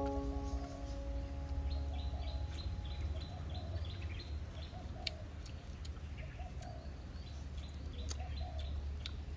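Small birds chirping in quick runs of high notes, with short clucking calls of a chicken repeating about once a second, over a steady low rumble. A held music chord fades out in the first few seconds.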